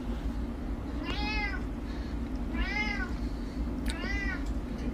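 Domestic cat meowing three times, short meows about a second and a half apart, each rising and then falling in pitch, over a steady low hum.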